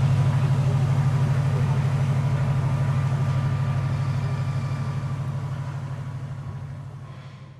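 Tugboat's diesel engine idling with a steady, rapid low throb, fading away over the last few seconds.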